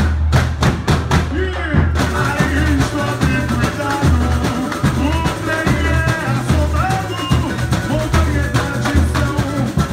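Samba school drum section playing a samba-enredo live, deep surdo bass drums beating steadily under snare and tamborim hits, with a sung melody over the drums.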